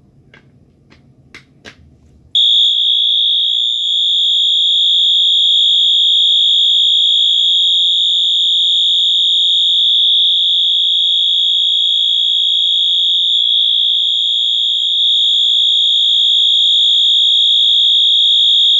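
Wheelock MT multitone fire alarm horn sounding its continuous tone: a loud, steady, high-pitched tone that holds unbroken. It comes on a little over two seconds in, after a few faint clicks.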